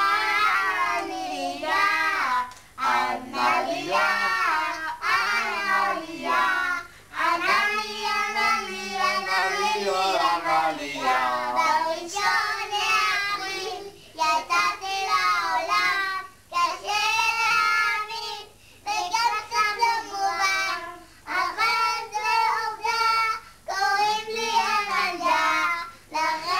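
Young girls singing a song together, high-pitched children's voices in phrases of a couple of seconds with brief pauses between them.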